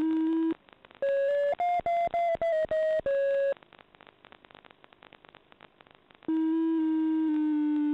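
Electronic tone on the FPV system's audio: a steady buzzy tone that steps slightly up and down in pitch breaks off about half a second in. A quick run of short, higher beeps at shifting pitches follows. Then come a few seconds of faint crackle before the steady tone returns about six seconds in.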